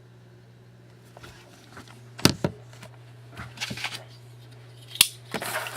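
Hands handling a sealed box of hockey cards: scattered clicks, two sharp knocks and short crinkly rustles of packaging over a steady low hum.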